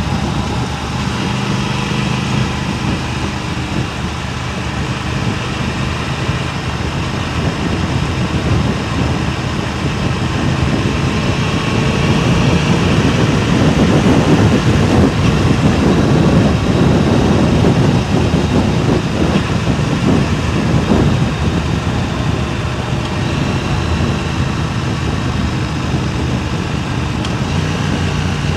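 Wind rushing and buffeting over a DJI Mic Mini clip-on microphone, with a running vehicle engine underneath. The wind noise swells about halfway through, then eases off.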